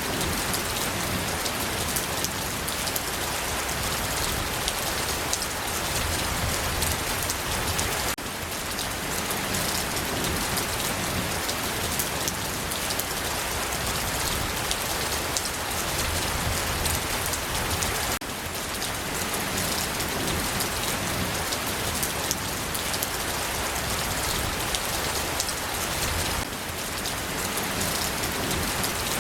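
Steady rain falling, a dense even patter of drops hitting surfaces. The level dips slightly three times, where the recording seems to be joined.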